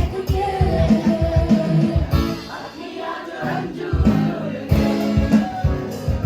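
Background music: a song with plucked guitar, a steady beat and singing, easing off briefly about halfway through.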